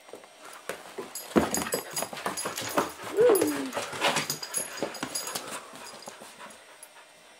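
German Shepherd puppy giving one short whine a little over three seconds in, rising and then falling in pitch, amid a few seconds of knocks and rustling from movement on the couch.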